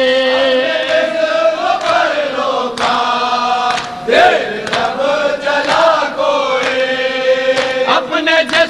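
Men chanting an Urdu noha, a Shia mourning lament, holding long sung notes that bend between pitches, with no words clearly sung. Sharp slaps come through at irregular intervals, the mourners beating their chests (matam).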